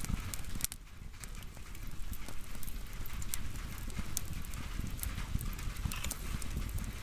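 Firewood burning: irregular sharp crackles and pops over a steady low rumble of flames.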